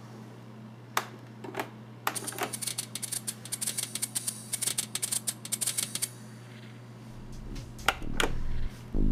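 Plastic buttons on a Roland R-8 drum machine's front panel being pressed, a few single clicks and then a quick run of rapid clicking, over a steady low hum. Near the end a louder low-pitched sound comes in.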